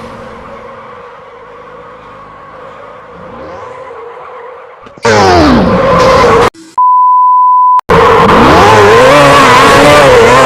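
A motor vehicle engine, quiet at first with its pitch falling, then revving very loudly from about five seconds in with its pitch rising and falling. A steady beep tone lasting about a second cuts in between the loud revs.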